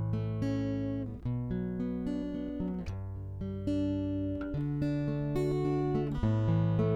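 Background music: acoustic guitar playing picked chords.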